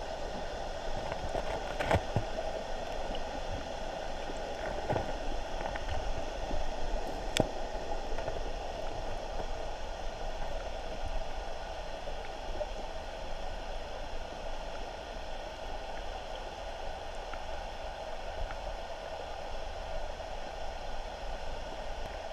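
Flowing river water and air bubbles heard underwater through a camera's waterproof housing: a steady, muffled rush with a low rumble. Sharp knocks come about 2, 5 and 7 seconds in.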